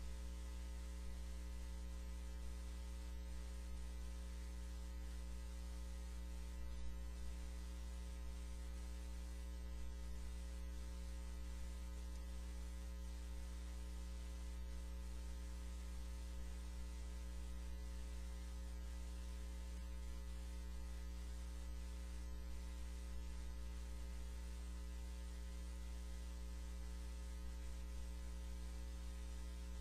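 Steady electrical mains hum with its evenly spaced overtones and a light hiss, unchanging throughout; one faint click about seven seconds in.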